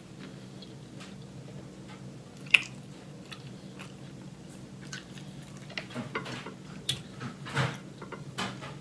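Close-miked chewing and mouth sounds of a person eating fried chicken, with scattered small clicks and a sharp click about two and a half seconds in, over a low steady hum.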